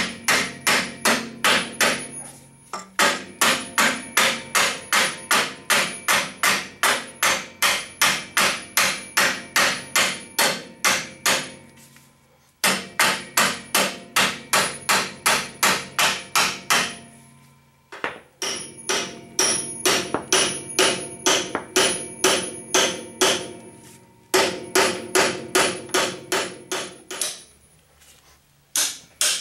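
Hammer striking steel, metal on metal with a light ring, about three blows a second in runs of several seconds with short pauses: driving the worn front axle pivot pin out of a 1948 Ford 8N tractor's front axle.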